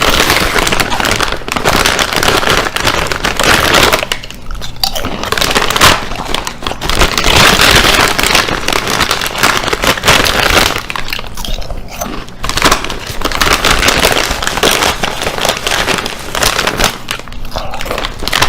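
Potato chips being crunched and chewed, loud and crackly, in long noisy stretches broken by a couple of short pauses.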